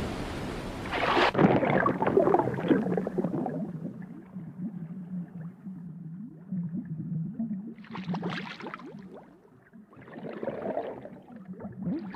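Cartoon underwater sound effects: bubbles gurgling over a low, steady underwater drone. A loud rush of noise stops abruptly about a second in, and more bursts of bubbling come near the end.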